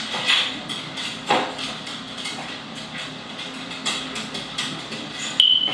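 Scattered knocks and clicks of household handling and movement, with one short high squeak a little over five seconds in.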